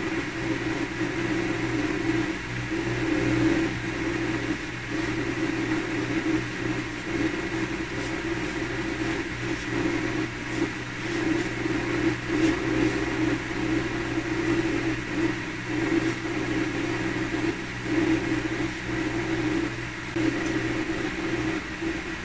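Steady mechanical hum of a running motor, its low drone swelling and fading every second or two.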